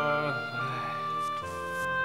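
Drama background score: sustained instrumental notes, changing to a new chord about one and a half seconds in.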